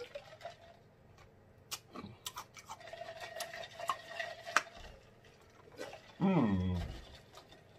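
Diet Coke being sipped and swallowed from a large tumbler, with small wet clicks and gulps and a steady hummed 'mmm' partway through. Near the end comes a loud, satisfied vocal 'ahh' that falls in pitch, which is the loudest sound.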